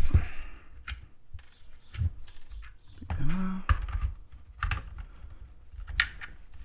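Hard plastic clicks and knocks of a battery pack being pushed and turned in the battery tray of a Traxxas Rustler RC truck, with a short rising voiced sound about three seconds in.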